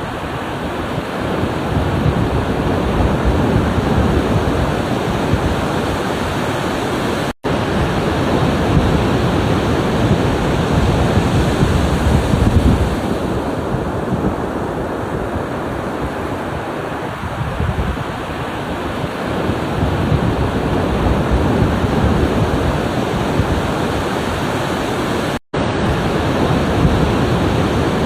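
Ocean surf washing in steadily with slow swells, a dense low rush of breaking waves. Twice the sound cuts out for an instant.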